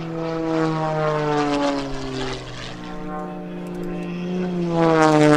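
Aerobatic propeller plane's piston engine and propeller droning at high power, the pitch sliding down as it passes. About five seconds in the drone swells to its loudest, its pitch rising and then falling again as a plane passes close.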